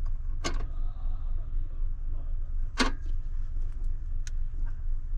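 A few sharp clicks and knocks from handling the inverter's cables and terminals, the loudest near three seconds in, over a steady low hum.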